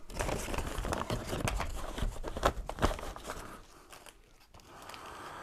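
Brown paper bag rustling and crinkling as a hand rummages inside it, with sharp crackles, dying down after about three and a half seconds.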